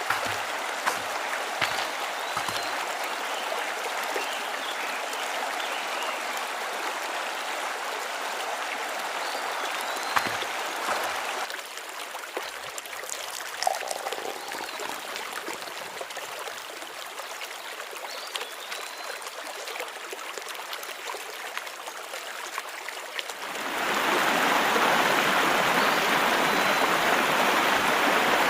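Creek water flowing over a stony bed, a steady rushing and trickling. The rush grows louder and fuller near the end.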